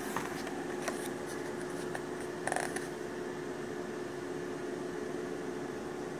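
Steady room hum with one constant tone, like a fan or appliance running. A few light clicks and, about two and a half seconds in, a short rustle of yearbook pages being handled and turned.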